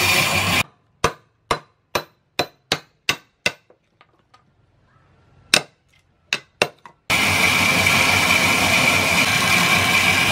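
Hammer blows on a wide steel blade splitting a block of hardwood: about seven sharp strikes at roughly three a second, then a single loud strike and three quicker ones. A band saw runs and cuts wood with a steady whine just before the strikes, then starts again abruptly after them.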